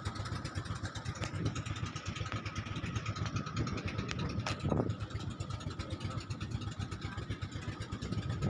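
Engine of a motorized outrigger boat running steadily under way, with a fast, even low pulsing. A single sharp click comes about halfway through.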